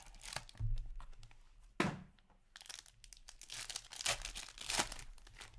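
Packaging of a box of hockey trading cards being torn open and crinkled: irregular rustling and tearing of wrapper and cardboard, with a sharp crack a little under two seconds in.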